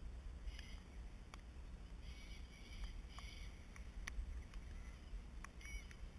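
Scattered light ticks of raindrops striking the camera over a low rumble, with a few short bird chirps: about half a second in, again from about two to three and a half seconds, and near the end.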